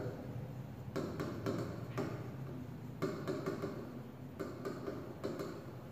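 Chalk writing on a chalkboard: a series of irregular taps and short scrapes as the letters are stroked on.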